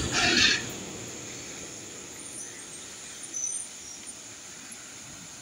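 Steady rushing of a fast-flowing river, opened by a short, loud hissing blast in the first half-second.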